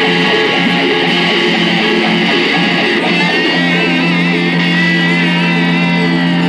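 Live rock band playing loud: strummed guitars over drums. About three seconds in, a held, wavering high note comes in over a sustained low note.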